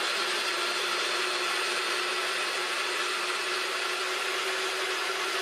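Ninja Precision Processor's motor base running steadily, spinning the auto-spiralizer's spaghetti blade disc as zucchini is pushed down through it and cut into noodles.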